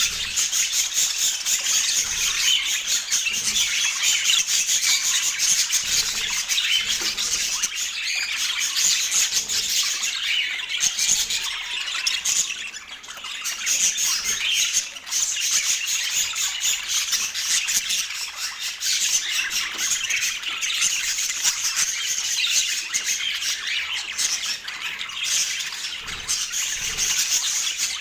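Budgerigars chattering: a dense, steady stream of rapid chirps and squawks, with brief lulls about twelve and fifteen seconds in.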